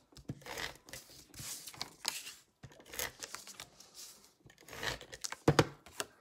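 Cardstock rustling and sliding under a hand as one paper layer is pressed and smoothed onto another, in a string of short swishes. A few sharp snaps come about five and a half seconds in.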